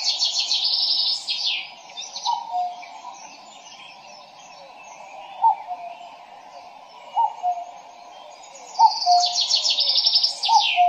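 Common cuckoo calling its falling two-note "cuck-oo" five times. Songbirds trill and chatter loudly over it near the start and again near the end.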